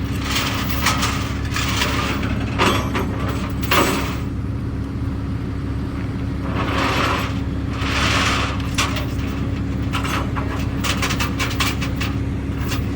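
A motor vehicle's engine running at idle with a steady low hum. Short scraping and rustling noises come and go over it, several times in quick succession near the end.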